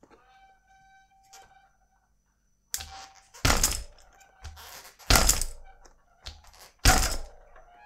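Mountain bike chain slapping and rattling against the frame with no chain tensioner fitted, heard as a run of heavy knocks in pairs starting about three seconds in. A faint metallic ringing comes before them.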